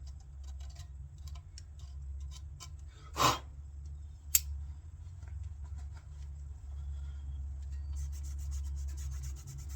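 Rag and pick scrubbing dirt and old heat-sink paste off the ignition control module's mounting pad on a distributor: light scraping and rubbing with small clicks, a short whoosh about three seconds in and a sharp click a second later, and faster scratching near the end. A steady low hum runs underneath.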